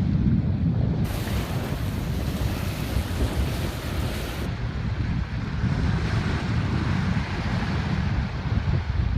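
Wind buffeting the microphone over the rushing wash of water along a sailboat's hull under sail. A brighter hiss of water rises from about a second in and drops away after a few seconds.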